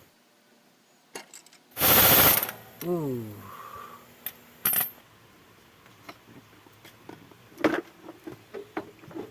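Hand tools working the manifold bolts on an engine: scattered ratchet and metal clicks, with one loud short burst about two seconds in followed by a brief falling whine.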